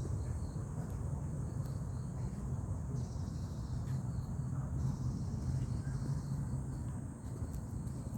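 Insects calling in the trees, a high buzzing chorus that comes and goes in spells of a second or two, over a steady low rumble.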